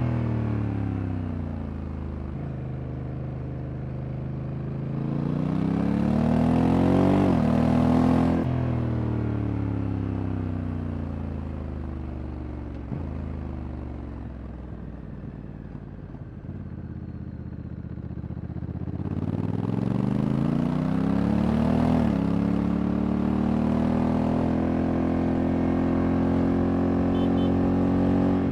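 Honda Africa Twin Adventure Sports' 1084 cc parallel-twin engine being ridden, with wind rushing past. The engine speeds up, its dual-clutch gearbox shifts up sharply, and it slows down gradually; it then speeds up again with another upshift and holds a steady cruise.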